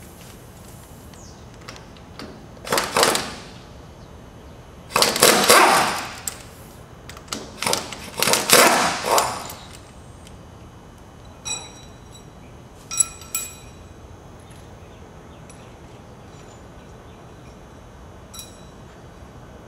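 Metal-on-metal hand work on the lower-blade bolts of a hydraulic shear: three harsh bursts of rattling noise, each about a second long, in the first half. These are followed by a few short, ringing clinks of steel parts or tools against steel, about two-thirds of the way in and once more near the end.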